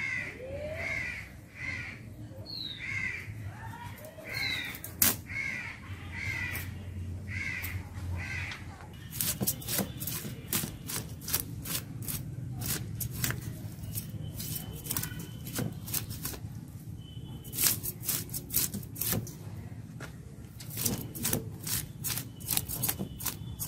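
A crow cawing about once a second for the first eight seconds or so, then quick sharp scrapes as a sorputi fish is scaled against the blade of a boti, two or three strokes a second in bursts.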